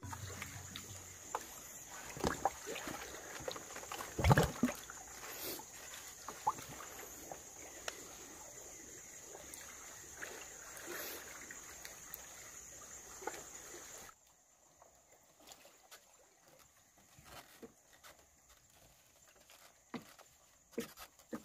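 Sea water sloshing and lapping, with scattered knocks and one loud thump about four seconds in. The level drops suddenly after about fourteen seconds to a quieter background with a few clicks.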